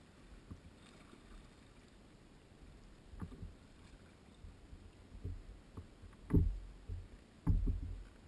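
Kayak on calm water: a series of knocks and water splashes against the hull, spaced out at first and growing louder in the second half, the loudest about six and a half and seven and a half seconds in.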